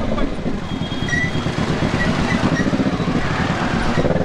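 Kawasaki Z650's parallel-twin engine running at low revs as the bike creeps through slow traffic, with a steady, evenly pulsing exhaust note.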